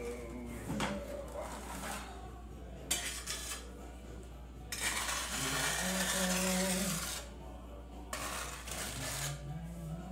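Steel notched trowel working thinset mortar: a few scrapes and knocks against the plastic bucket as it is loaded, then about three seconds of steady, loud scraping as the mortar is spread across the back of a mesh-backed hexagon mosaic tile sheet.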